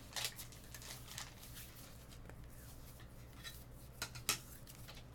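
Faint scattered light clicks and taps, several near the start and two close together near the end, over a steady low hum.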